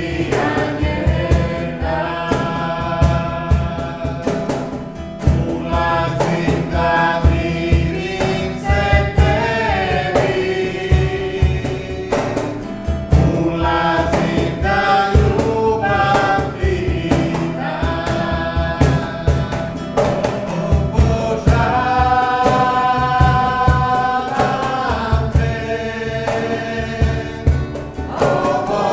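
A man and a woman singing a slow worship song together, backed by strummed acoustic guitar and a steady hand-played cajón beat.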